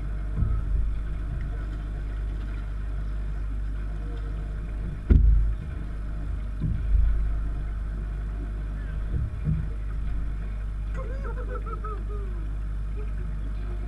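Steady low rumble on an open fishing boat, with a sharp knock about five seconds in and a few duller thumps as a snook is brought to the boat, then short excited voice calls near the end.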